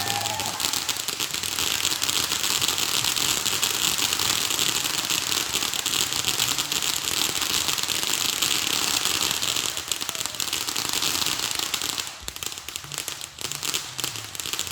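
Fireworks crackling in a dense, continuous rush of rapid pops for about twelve seconds, then thinning to scattered pops near the end.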